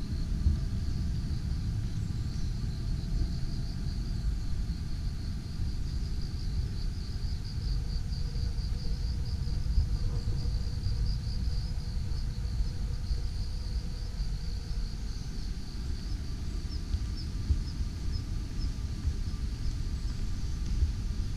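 Insects chirping in a steady, rapidly pulsing trill, over a continuous low rumble.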